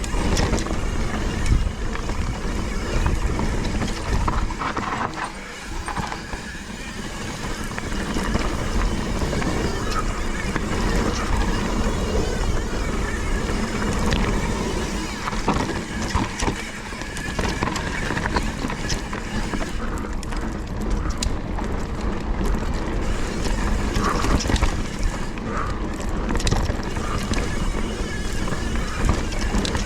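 Mountain bike riding over a rough dirt trail: wind rushing on the action camera's microphone, with tyre noise and the bike rattling and knocking over bumps.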